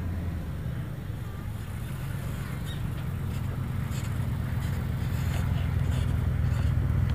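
Steady low rumble that grows a little louder toward the end.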